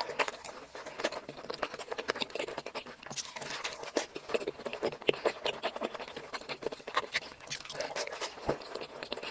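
Close-miked ASMR eating: chewing and mouth sounds making a dense, irregular run of crisp clicks and crackles.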